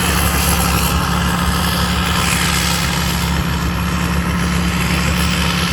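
TAMCO rice combine harvester's Isuzu 6HK six-cylinder diesel engine running steadily under load, a constant low drone with machinery noise.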